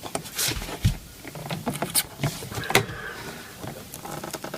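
Plastic door-panel clips on a BMW Mini's door being pried loose with the edge of an old number plate: a series of sharp snaps and clicks at uneven intervals, with a low thump about a second in.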